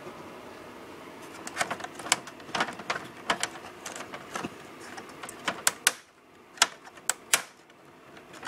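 A run of irregular sharp clicks and taps from the plastic and sheet-metal parts of an IBM ProPrinter III being handled and worked apart by hand, with a few louder knocks near the end.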